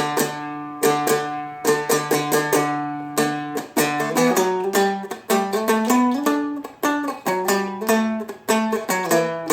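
Seagull Merlin, a four-string fretted instrument, played as a bass run of single and doubled plucked notes with its other strings ringing. A low note repeats at first, and the run moves through changing notes from about four seconds in.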